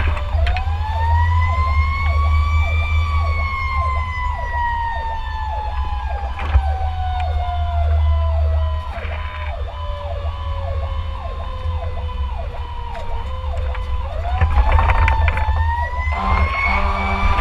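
Fire truck siren heard from inside the cab over the diesel engine's rumble: the wail climbs, then slowly falls in pitch for about ten seconds before climbing again. Near the end a steady low horn blast joins in.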